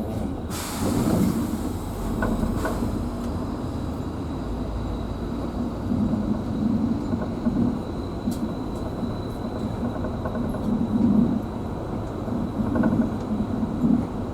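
Bus engine running and road noise heard from inside the moving bus: a steady low rumble that swells and eases without stopping.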